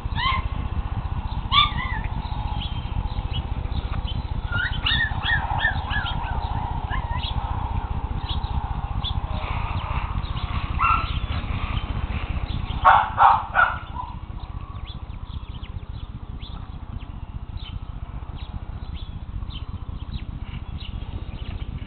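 Keeshond puppies playing, giving scattered short squeaks and whimpers, with three loud yaps in quick succession about 13 seconds in. A steady low rumble runs underneath.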